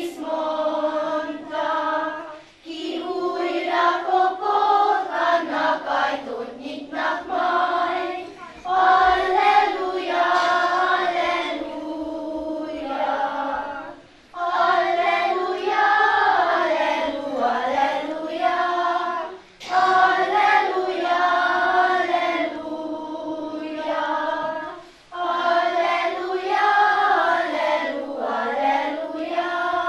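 Children's choir of girls singing, in phrases of about five to six seconds with short breaks between them.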